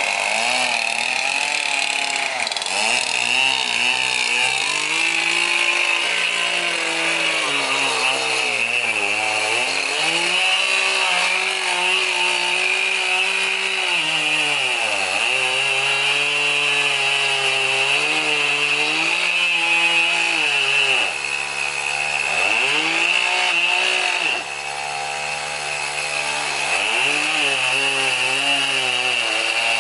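Chainsaw cutting into a large tree trunk, the engine running at high speed. Its pitch sags and recovers several times, dropping lowest twice in the last third before picking back up.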